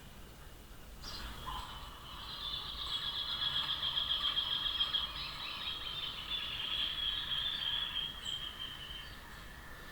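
Rufous hornero song: a long, rapid trill that builds about a second in, runs for roughly seven seconds and drops slightly in pitch near the end.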